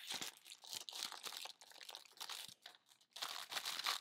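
A clear plastic packaging sleeve crinkling as it is handled around a sheet of puffy stickers. The crackling stops briefly near the end, then picks up again louder.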